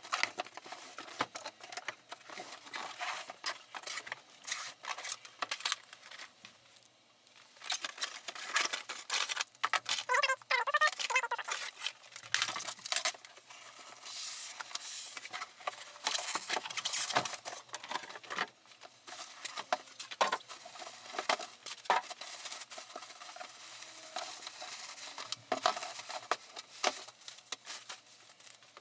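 Printer packaging being unpacked by hand: cardboard and plastic wrapping rustling and crinkling, with many small knocks and clicks and a brief squeak about ten seconds in.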